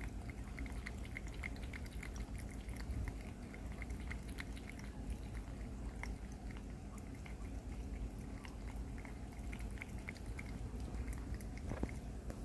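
A cat lapping water from a pet water fountain: quick, regular laps, several a second, over a faint steady low hum.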